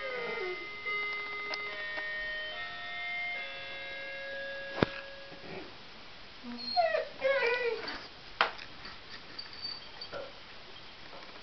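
An English Bull Terrier howls along to a musical doorbell playing a tune. The doorbell's held notes fill the first five seconds or so, with a short falling howl at the start, and a run of wavering howls comes about seven seconds in. A sharp click sounds about five seconds in, and another just after the howls.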